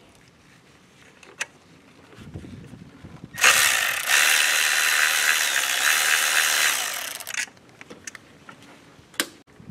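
Cordless electric ratchet spinning out a coil-pack bolt: it starts with a short burst about a third of the way in, then runs steadily for about three seconds with a high motor whine, tapering off before it stops. A few light clicks of the socket and bolt come before and after.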